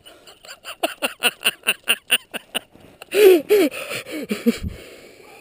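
A man breathing hard and fast in quick gasps, about four or five a second, after landing a big fish. About three seconds in come two louder voiced gasps, and then the breathing trails off.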